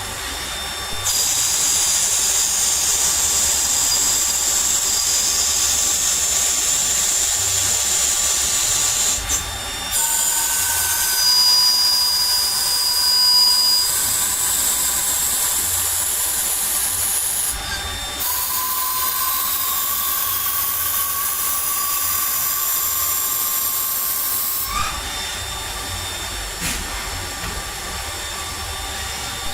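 CNC lathe machining: a loud, steady high hiss with thin whining tones that slide slowly in pitch, the cut changing briefly a few times.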